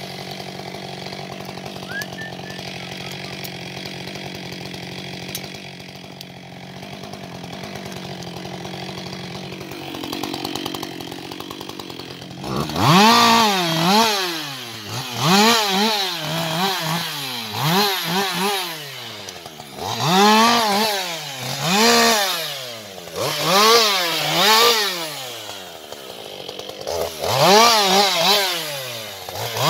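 Husqvarna 560 XP two-stroke chainsaw idling steadily, then, from a little before halfway, revved up and let fall again and again, about once every two seconds, in short cuts while limbing fallen trees.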